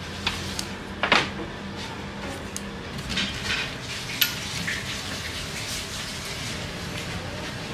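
Dishes and metal utensils clinking and knocking several times, the loudest clink about a second in and a ringing one a few seconds later, over a steady low hum.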